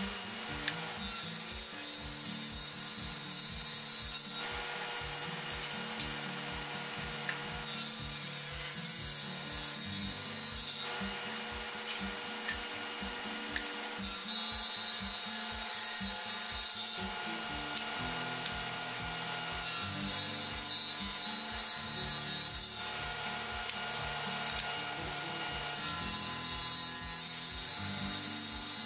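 Table saw running steadily and ripping thick oak boards lengthwise, with a hissing cut through the wood every few seconds. Background music with a steady beat and a bass line plays under it.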